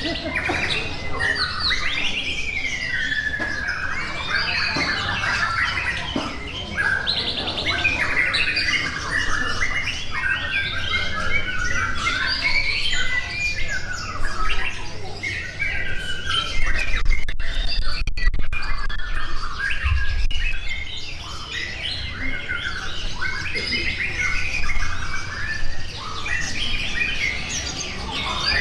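Many caged contest songbirds singing and calling at once: a dense, overlapping mix of chirps, trills, squawks and gliding whistles with no pause.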